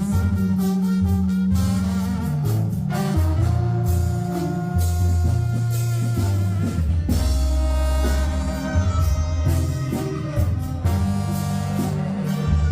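Mexican banda playing live, an instrumental passage without singing: tuba bass line in held notes under a brass and reed melody, with steady drum and cymbal strokes.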